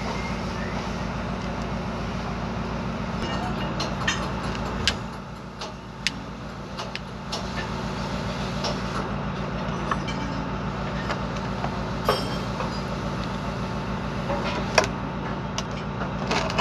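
Scattered light metallic clicks and clinks as universal-joint parts (the cross and its bearing cups) are handled and fitted by hand, over a steady low mechanical hum that drops off about five seconds in.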